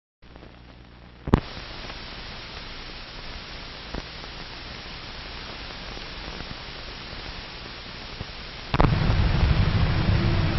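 Steady hiss and crackle of an old optical film soundtrack, with a sharp pop about a second in and a fainter one near four seconds. About nine seconds in the noise gets suddenly louder and a low hum joins it.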